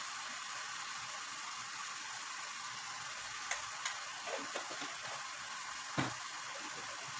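Chicken pieces frying in oil in a nonstick pot, a steady sizzle, with a few light clicks and a louder knock about six seconds in.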